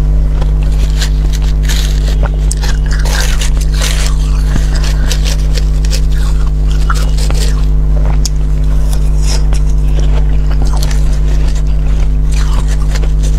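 Metal spoon scraping frost from frost-covered balloon ice in short irregular strokes, over a loud steady low hum.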